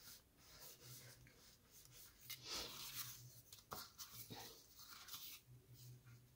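Faint rustling and sliding of cut cardstock and paper pieces as they are picked up and shuffled by hand, with a few light taps; the loudest rustle comes about two and a half seconds in.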